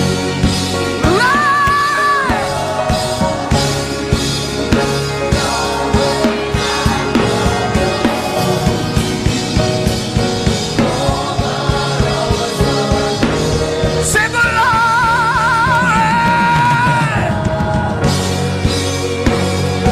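Gospel worship music: a voice sings long held notes over a band with a steady drum beat, rising into one held note about a second in and holding another with a wavering vibrato about fourteen seconds in.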